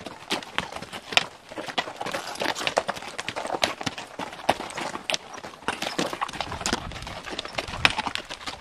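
A string of loaded pack mules walking past, their hooves clopping in many sharp, irregular steps on the rocky trail.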